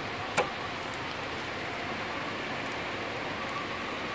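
Steady, even hiss with a single sharp click about half a second in.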